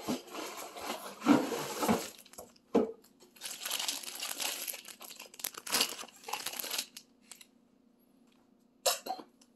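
Crinkly plastic fishing-lure packaging being handled, in irregular bursts of rustling over the first seven seconds, then a short sharp sound near the end.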